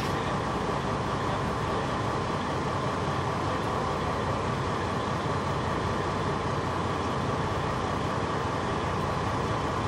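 Fire engine's diesel engine running steadily, a constant unbroken drone.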